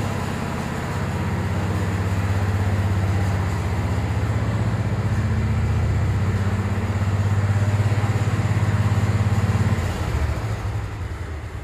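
An engine running steadily with a low, pulsing note, then shut off about ten seconds in and winding down.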